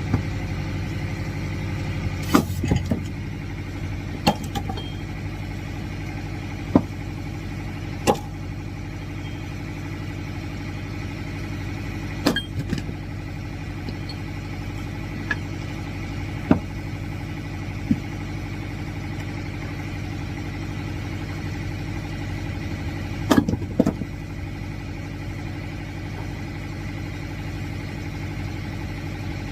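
An engine running steadily while firewood is split, with about a dozen sharp cracks and knocks of wood breaking at irregular intervals and a short cluster of them near the end.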